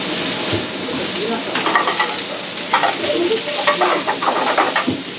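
Food sizzling as it fries in a pan, a steady hiss with repeated clinks and scrapes of a utensil against the pan.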